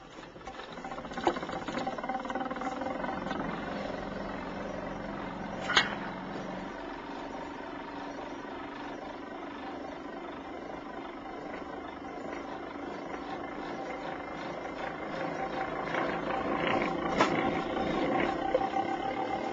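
Homemade transistor-switched pulse motor running, its large rotor disc spinning past a ring of coils: a steady humming whir with a few sharp clicks. It starts about a second in and grows louder near the end.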